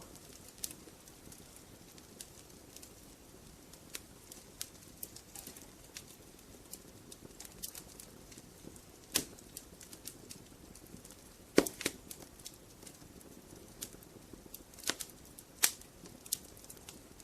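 Wood logs burning in a fireplace: a low steady hiss with irregular crackles and sharp pops, the loudest pops about nine, eleven and a half, and fifteen and a half seconds in.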